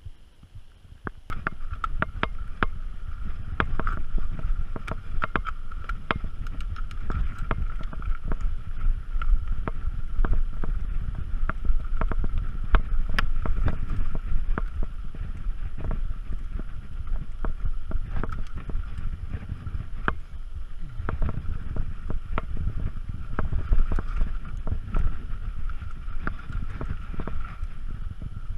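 Mountain bike riding down a rocky slickrock trail: wind rumbling on the bike-mounted camera's microphone, with the bike rattling and clicking over the rock. It starts about a second in, with a steady high buzz running along under it.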